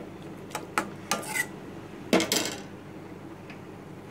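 A spoon stirring and mashing potato masala gravy in an aluminium kadai, clinking and scraping against the pan several times, loudest a little after two seconds.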